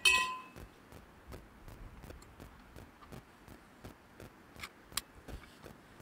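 Tent pole sections knocking together as they are handled and joined: a sharp clink with a short ring at the start, then scattered light clicks and taps, one sharper about five seconds in.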